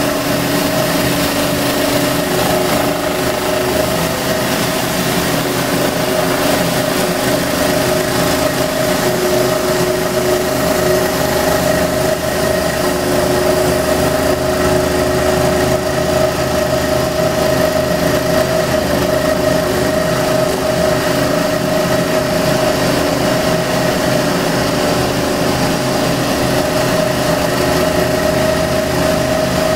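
Scroll saw running and cutting a wooden blank along a curved traced line: a steady motor hum over the hiss of the blade in the wood.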